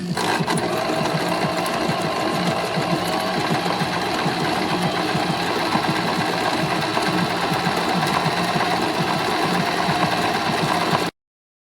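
Singer Simple 3221 mechanical sewing machine running at a steady, fast stitching speed, then cutting off abruptly near the end.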